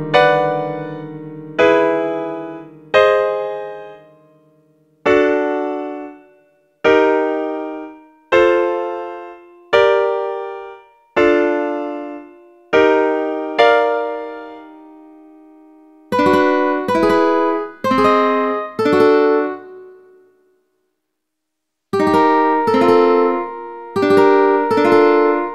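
Piano playing a sequence of single chords, one at a time, each struck and left to ring out, about every second and a half. About sixteen seconds in, it changes to shorter ukulele chords played in quicker succession, with a brief pause before the last group.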